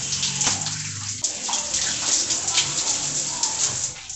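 Shower water spraying and splashing steadily as a body is rinsed off after exfoliating.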